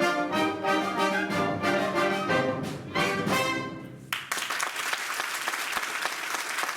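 An orchestra plays the closing bars of a waltz in a steady beat, and the music ends about four seconds in. The audience then applauds.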